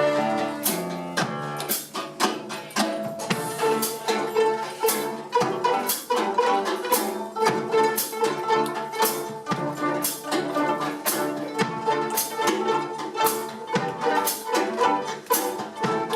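Children's string orchestra playing a piece that switches between bowed and pizzicato (plucked) notes, with a steady beat of sharp note attacks over held tones.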